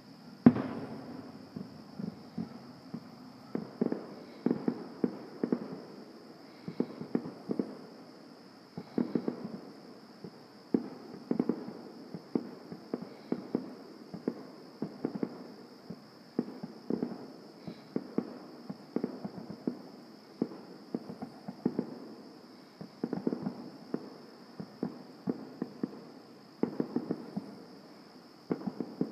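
Fireworks going off in a steady run of crackling clusters of bangs, a new cluster every second or two, with one loud single bang about half a second in.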